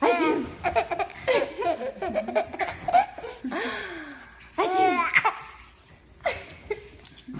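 Baby laughing in repeated bursts, with a loud, high-pitched peal about five seconds in.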